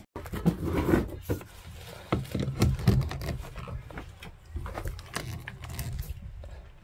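Handling noise of a heavy power cord being plugged into a generator's twist-lock outlet: scattered clicks and knocks with an uneven low rumble, loudest about a second in and again two to three seconds in.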